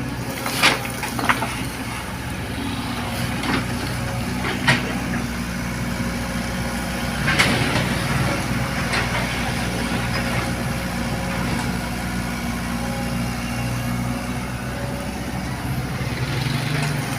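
Excavator's diesel engine running steadily, with a few sharp knocks in the first half.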